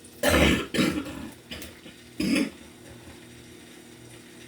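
Kitchen utensils and dishes being handled on a counter: four short clattering knocks, the loudest at the start and another about two seconds in.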